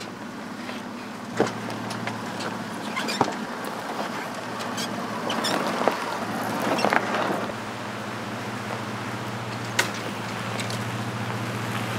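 Truck engine running steadily at low revs, with several sharp knocks and rattles scattered through and a louder, rougher stretch in the middle.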